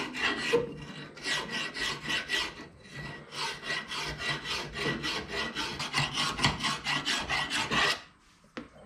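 Medium-coarse file rasping in quick, even strokes against the rusted rear hub mounting hole of a Subaru suspension knuckle, knocking down a ridge of rust that made the new wheel-bearing hub fit too tight. The strokes stop shortly before the end, followed by a small click.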